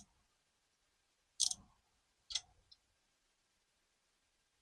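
Three short, sharp clicks of a hand tool on metal, right at the start, about a second and a half in and about two and a half seconds in.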